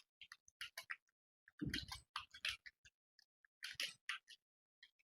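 Typing on an ANT Esports computer keyboard: quick, uneven runs of key clicks with short pauses between words, one heavier keystroke about a second and a half in.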